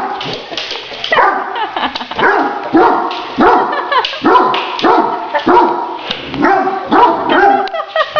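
Great Dane barking over and over, about two short barks a second, some of them falling in pitch like yips.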